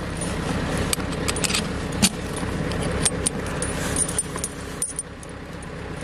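Steel snow-chain links on a truck tyre clinking and rattling in irregular clicks as they are hooked up and tensioned by hand, one sharper clank about two seconds in, over the steady hum of the truck's engine running.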